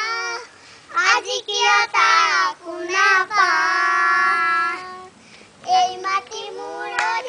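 A group of young children singing together, in phrases of long held notes with two short breaks between lines.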